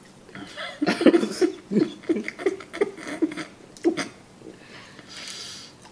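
A man laughing behind his hand: a run of short, muffled laugh pulses, about three a second, starting about a second in, then a breathy exhale near the end.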